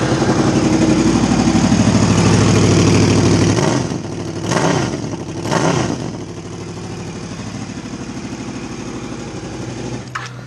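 Honda VFR800 V4 engine just started: it runs at a raised idle for a few seconds, drops, takes two short blips of the throttle, then settles into a steady idle. The exhaust is blowing at the silencer-to-collector-box joint, which has corroded through.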